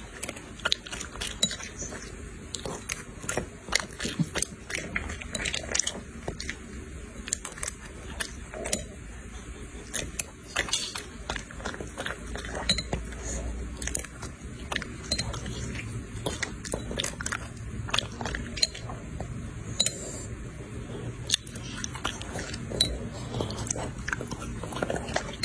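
A dog chewing and smacking on soft noodles fed from chopsticks: a run of irregular wet mouth clicks and chews.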